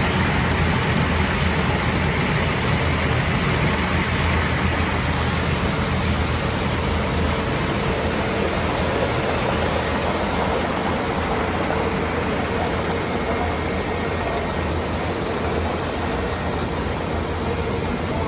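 A motor vehicle's engine running steadily, a constant low hum with a steady mid-pitched tone that gradually gets a little quieter.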